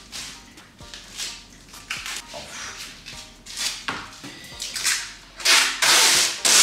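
Clear plastic packing tape pulled off the roll onto cardboard boxes: a series of short rips, then two long, loud pulls near the end.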